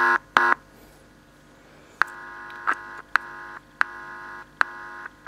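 Old AM clock radio's speaker buzzing with hum as a fingertip touches the volume control contact at the audio amplifier's input, a sign the amplifier is working. The buzz sounds briefly at the start, fades to a low lull, then returns steadily about two seconds in, broken by several clicks and short dropouts.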